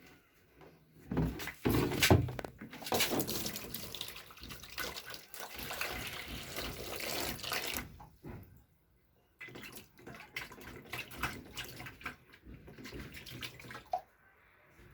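Water running from a tap into a sink, with a few knocks about a second in. The flow stops about eight seconds in and starts again a second later.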